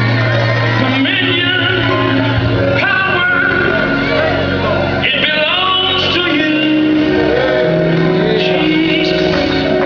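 Live gospel music: a group of singers over a band, with held low chords under the voices.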